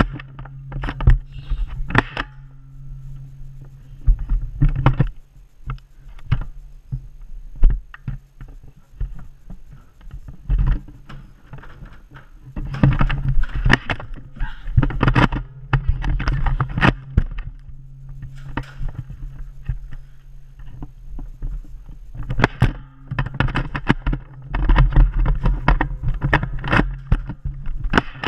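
Handling noise from a body-worn or hand-held camera jostled as its wearer moves about: a steady low rumble with irregular knocks and rustles.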